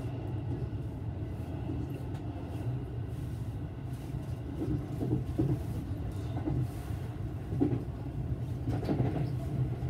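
Electric train running along the line, heard from inside the car: a steady low rumble of wheels on rails.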